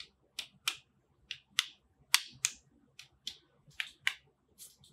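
Sharp, high clicks from the small plastic Sony ICD-UX560F voice recorder being handled and turned over in the fingers, coming in quick pairs, about six pairs in all.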